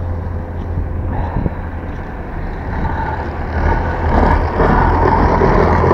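Blizzard wind buffeting the microphone: a continuous deep rumble that grows louder about four seconds in as a gust picks up.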